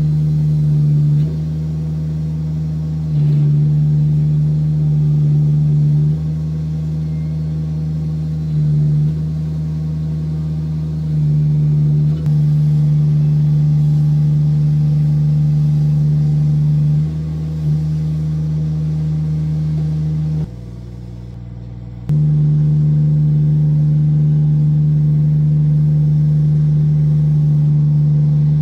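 Engine of a tracked digger derrick running steadily while its hydraulic auger is worked, the level stepping up and down every few seconds. Roughly two-thirds through it drops to a lower, quieter sound for about a second and a half, then comes back up.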